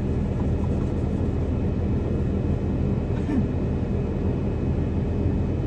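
Steady low drone inside a semi-truck cab: the truck's diesel engine idling, with a small microwave oven running on the truck's power.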